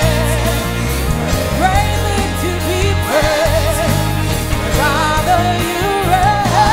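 Live gospel worship music: a band plays under a singer's wavering, vibrato-laden melody, over a steady low bass.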